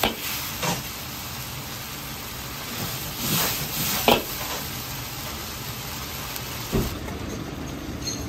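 Mapo tofu sizzling in a wok as it is tossed and stirred, with a few short swishes and a sharp knock about four seconds in. The sizzle fades near the end.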